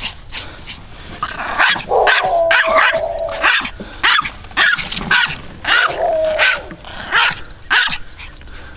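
Pomeranian barking rapidly and repeatedly, short sharp yaps about two a second, twice drawn out into a longer pitched bark, as it attacks a lawn mower.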